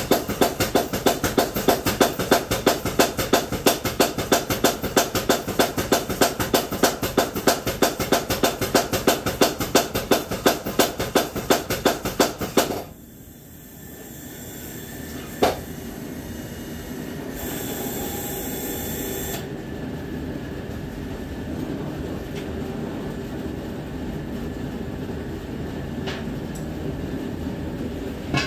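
Rapid, even hammer blows on steel, about four a second, that stop about 13 seconds in. A steady rushing noise follows, with one sharp knock shortly after.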